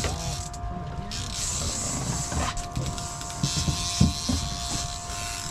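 A fishing reel being cranked, its gears rattling and clicking, which the angler says may need a bearing replacement. A steady hum with a few fixed tones runs underneath.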